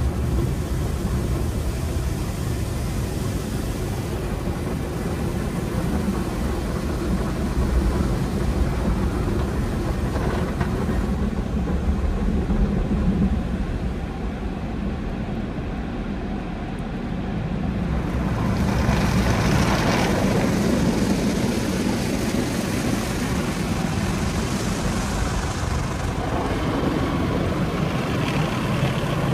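Conveyor car wash tunnel running: a steady rumble of wash machinery with hissing water spray. The hiss drops away about eleven seconds in and comes back louder about seven seconds later.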